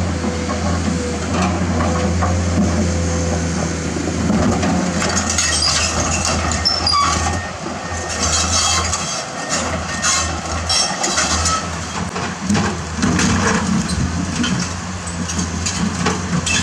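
Komatsu PC210-10 excavator's six-cylinder diesel engine running with a steady hum while its steel bucket scrapes and pushes boulders, rocks knocking and clattering, most of all in the middle of the stretch.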